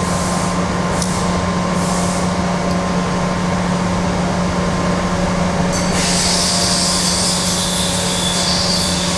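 Steady mechanical hum of a cylindrical (OD) grinder. A steady high hiss cuts in about six seconds in and keeps on.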